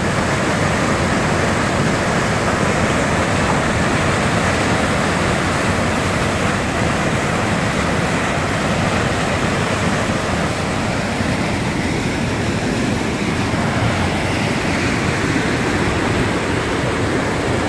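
Fast mountain creek rushing over rocks and a small cascade of whitewater: a steady, loud rush of water with a strong current.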